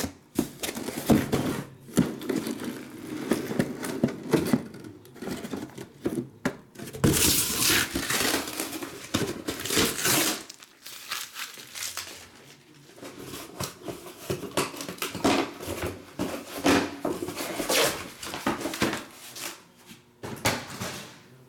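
Cardboard shipping case and shrink-wrapped card boxes being handled: irregular rustling, scraping and plastic crinkling with small knocks, loudest in a stretch of dense rustling about a third of the way in.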